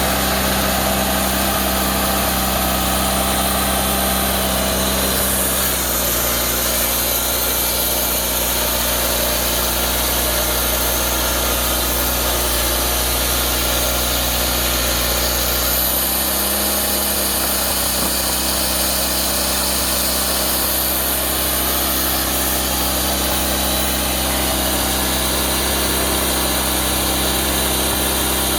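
Woodmizer LT40 sawmill's engine running steadily on its first run after restoration, its tone shifting slightly about six seconds in and again about sixteen seconds in.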